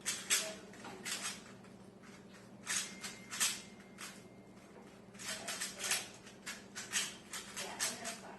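3x3 Rubik's cubes being turned fast in a speedsolve: flurries of quick plastic clicks and rattles as the layers snap round, with short pauses between the flurries and the turning growing busier in the second half.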